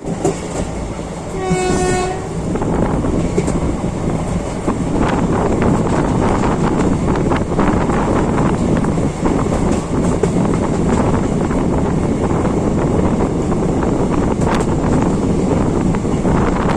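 A train horn sounds one short blast about a second and a half in, then a train runs on at speed with a steady rumble and scattered rattling clicks.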